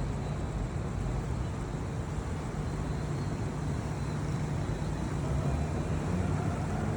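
Steady low rumble of city traffic, with no single passing vehicle standing out.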